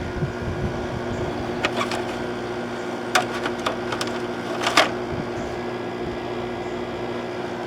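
A 2006 GE 5150 BTU window air conditioner running, its LG compressor and fan giving a steady hum that sounds pretty good. A few sharp clicks come over it, about two seconds in, three more between three and four seconds, and the loudest near five seconds.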